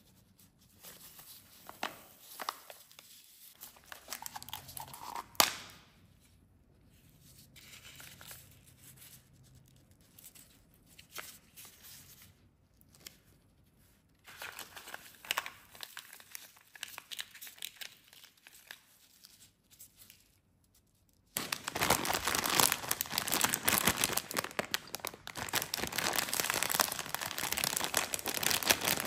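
A clear plastic candy box is handled and opened by gloved hands, with scattered soft clicks and rustles and one sharp snap about five seconds in. About 21 seconds in, loud, continuous crinkling begins as a plastic snack-bun wrapper is squeezed and handled.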